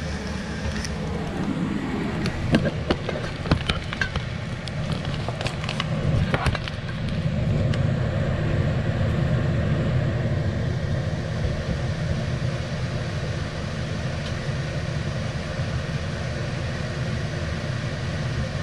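A plastic portable toilet being handled and set in place: a few sharp knocks and clunks in the first seven seconds, over a steady low hum.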